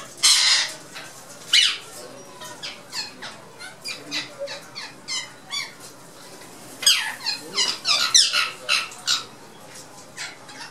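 Ringneck parakeets squawking in an aviary: a loud harsh screech right at the start and another about a second and a half in, then a run of short sharp calls, bunching into a thick flurry of screeches in the later part.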